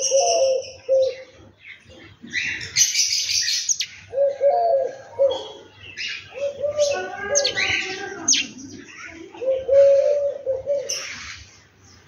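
House sparrows chirping, and a dove cooing low, repeated phrases about four times among the chirps.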